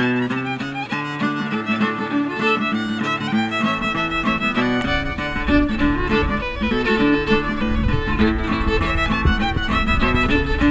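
Fiddle music, a folk-style tune played on violin.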